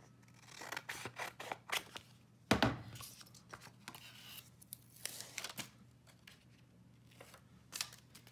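Scissors snipping through a paper-backed adhesive sheet in a run of short cuts, then a single louder knock about two and a half seconds in, followed by scattered light clicks and paper handling as the sheet is laid over the die.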